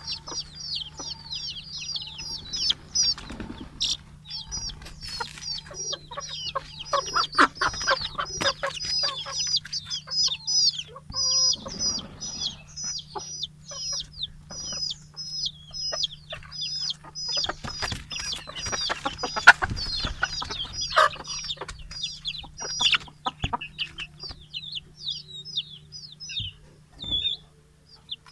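A flock of domestic hens and young chickens calling at feeding time. A constant stream of high, rapid peeping runs over scattered clucks from the hens, with a steady low hum underneath.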